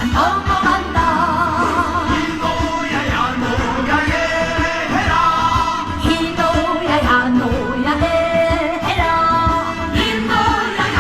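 A woman singing a Korean trot song with heavy vibrato over an amplified band accompaniment with a steady beat.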